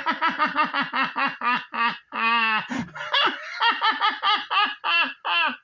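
A man's high, rapid villain's laugh from a toy commercial, the cartoon cackle of Skeletor: a long run of short pulses, about six a second, broken by one held note a little past two seconds in.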